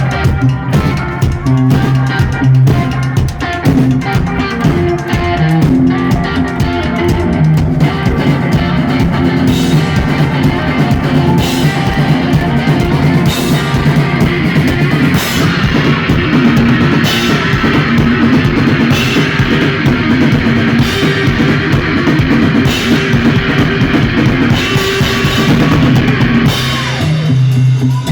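Live rock music from an electric guitar and a drum kit, played loud with no vocals, the drums and cymbals building into a dense wash in the second half.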